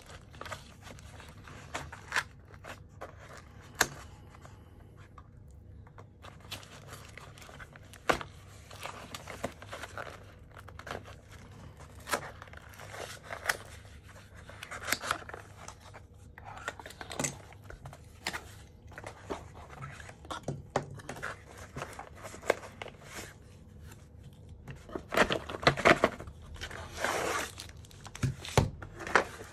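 Cardboard packaging being opened and handled by hand: scattered taps, scrapes and paper rustles, with a longer spell of loud crinkling from the plastic wrapping near the end.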